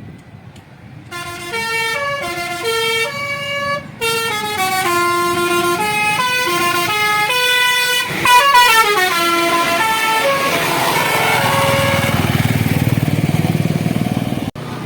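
A tour bus's basuri 'telolet' musical air horn plays a quick melody of short stepped notes, starting about a second in. After about ten seconds a loud engine-and-road rumble swells, then cuts off suddenly near the end.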